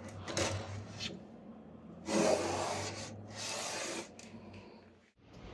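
A cloth rag rubbing and wiping the bare plywood inside of a kitchen drawer, in a few hissing strokes. The two longest and loudest come a little past the middle.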